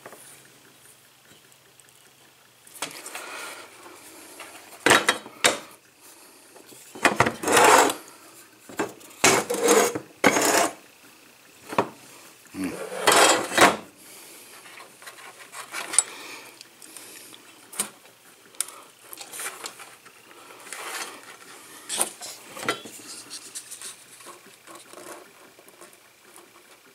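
Hands twisting stripped wire ends together and moving thin cables across a wooden tabletop: irregular bursts of rubbing and scraping with small clicks, loudest in the first half.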